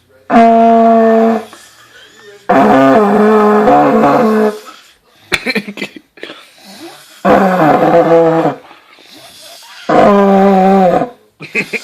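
Vuvuzela blown in four loud blasts of one steady buzzing note, each about a second long except the second, which lasts about two seconds and wavers in pitch.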